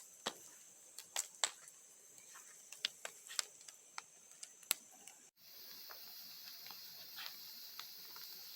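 Wood fire crackling faintly: a burning bonfire giving off irregular sharp pops and snaps over a faint high hiss.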